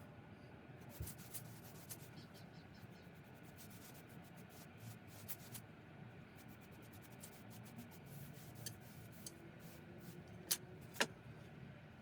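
A paintbrush brushing Rustins MDF sealer onto an MDF board: faint rubbing strokes with small clicks, and two sharp clicks half a second apart near the end.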